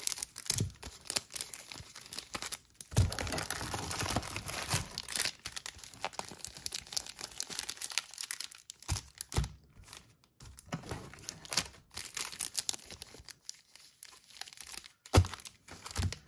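Plastic-wrapped Magic: The Gathering Ikoria booster packs crinkling and rustling as they are handled and spread out on a playmat, with a few knocks.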